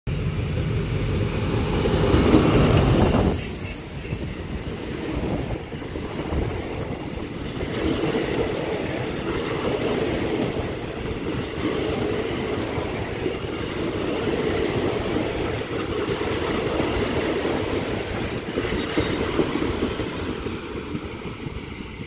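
An Alsthom diesel-electric locomotive runs past with its engine running, loudest about two to four seconds in, with a high steady squeal at the same time. Its passenger coaches then roll past in a steady rumble of wheels on rail as the train slows into the station, fading near the end.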